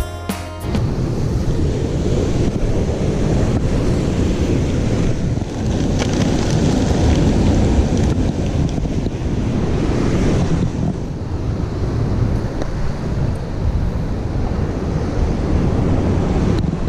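Wind buffeting the microphone over the steady wash of sea surf. A stretch of guitar music cuts off within the first second.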